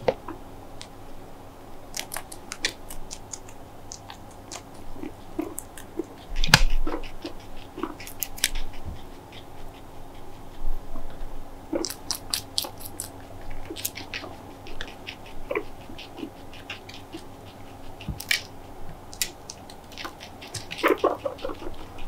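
Guinea pig crunching and chewing green bell pepper: a scattered series of short, crisp crunches. A few brief squeaks sound near the end.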